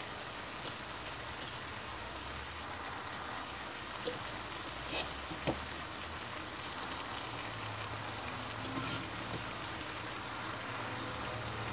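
Ground-meat and tomato stuffing sizzling steadily in a frying pan as it cooks, with a few faint clicks.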